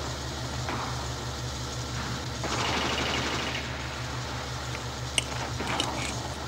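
T-34 tank's diesel engine running with a steady, low pulsing rumble. About halfway through, a louder hiss comes in for about a second, and a couple of short clicks sound near the end.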